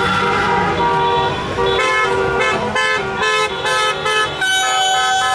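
Several car horns honking at once, overlapping steady tones. In the middle comes a run of short rhythmic toots, and near the end one horn is held in a long continuous blast.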